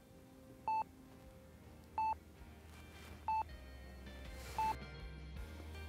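Bedside heart monitor beeping in a steady rhythm, one short electronic beep about every 1.3 seconds, each beep marking a heartbeat, over a low hum.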